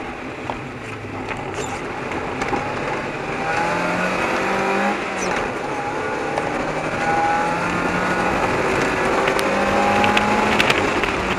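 1994 Mazda Miata's 1.8-litre four-cylinder engine driven hard through an autoslalom, the engine note climbing under acceleration twice and dropping back between, over a steady rush of wind noise.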